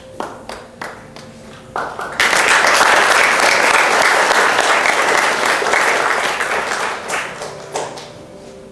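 Audience applauding: a few scattered claps at first, then full applause from about two seconds in that dies away near the end.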